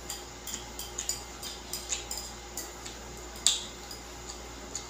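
Close-up eating sounds: wet mouth clicks from chewing noodles and chopsticks tapping a ceramic plate, an irregular patter of small ticks with one louder click about three and a half seconds in.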